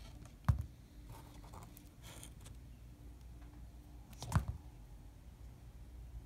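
Two sharp knocks about four seconds apart as the rubber roof molding strip is handled and set against the cardboard-covered bench, with faint rustling between them over a low steady hum.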